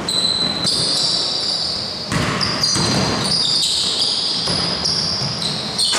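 Basketball being played on a wooden court: sneakers squeak in many short, high squeals that overlap, and the ball bounces off the floor a few times.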